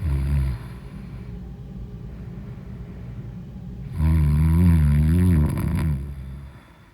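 A person snoring: a short snore at the start, then a longer, wavering, rattling snore about four seconds in that lasts around two seconds and fades away.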